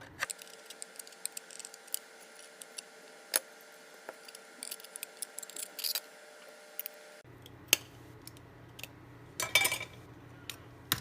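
Irregular light clicks, snaps and small rattles of a solid-state drive's casing being pried open and its parts handled, with a brief flurry of rattling near the end.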